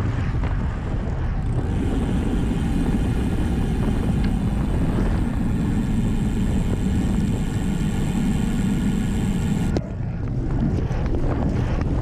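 Wind buffeting a bike-mounted camera's microphone over tyre and road noise from a road bike at speed. From about a second and a half in, the rear freehub buzzes steadily while the rider coasts. The buzz cuts off suddenly about two seconds before the end as pedalling resumes hard.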